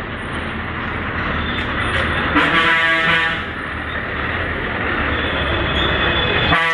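A bus's diesel engine running close by, with a steady low rumble. A horn blares for about a second near the middle and sounds again at the very end.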